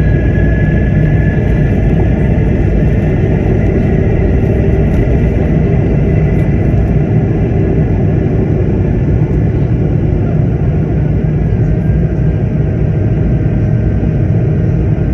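Airliner cabin noise in flight: a steady, loud rumble of the engines and airflow, with faint steady whining tones above it.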